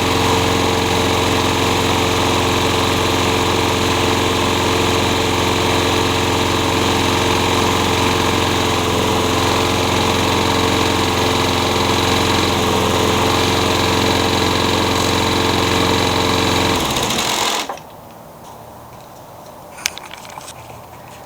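Walk-behind lawn mower's small gasoline engine running steadily at a constant speed, then stopping suddenly about seventeen seconds in. A few faint clicks follow.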